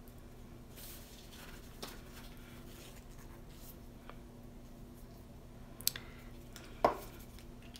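Faint rustling of gloved hands handling a small art panel over a paper towel, with two sharp taps about six and seven seconds in.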